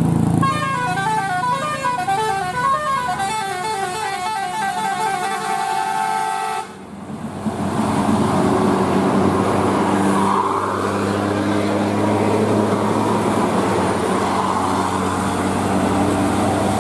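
Bus telolet horn, a Basuri-style melodic air horn, playing a quick stepping tune of many short notes for about six seconds, then cutting off abruptly. After that a bus engine runs steadily.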